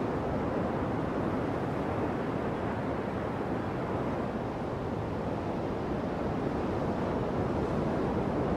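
Pacific Ocean surf breaking on the shore: a steady rushing wash of waves.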